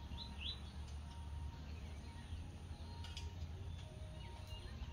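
Faint outdoor ambience: a steady low rumble with a few short, high bird chirps near the start.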